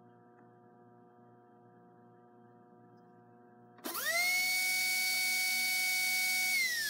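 Faint steady hum at first. About four seconds in, a slot car pancake-armature motor in a test chassis spins up quickly to a steady high whine, holds for about two and a half seconds, then starts to wind down near the end. It is a short test run to judge the armature's dynamic balance by how smoothly it runs.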